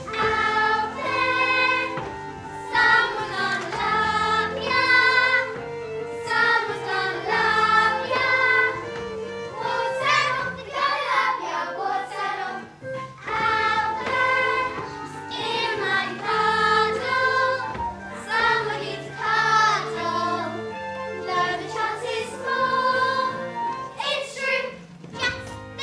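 A group of children singing a musical theatre song in chorus, over sustained instrumental accompaniment chords.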